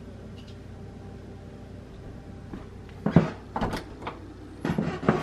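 A bedroom door being handled and opened: a few sharp clunks and rattles about three seconds in, then more near the end, over a low steady room hum.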